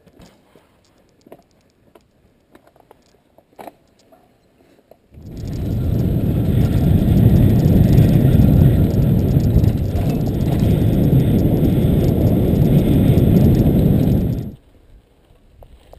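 Wind rushing over a ride-along camera's microphone as the mountain bike goes fast, a loud low rush that starts about five seconds in and cuts off suddenly near the end. Before it there are only faint clicks and rattles of the bike.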